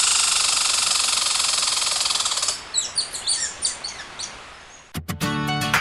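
Birds chirping: a dense, high, fast trill for about two and a half seconds, then a run of quick, sharp chirps. Music with plucked guitar-like notes comes in near the end.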